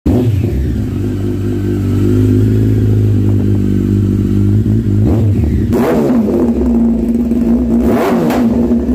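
Kawasaki superbike engine with an aftermarket slip-on exhaust idling, then given a few quick throttle blips in the second half, each rising and falling in pitch before settling back to idle.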